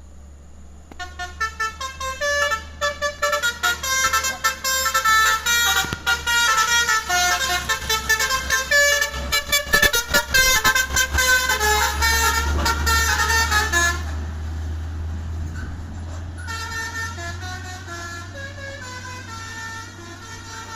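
Basuri multi-tone 'telolet' musical horn on a container truck, playing a quick tune of shifting notes. It starts about a second in and grows softer after about fourteen seconds, over a low, steady engine rumble.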